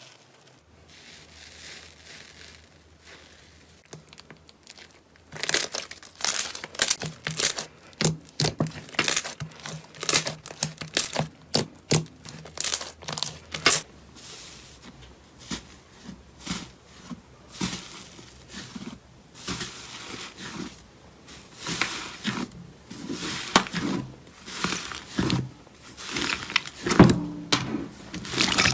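Slime being squeezed and pressed by hand, giving a quick, irregular run of sharp pops and crackles that starts about five seconds in.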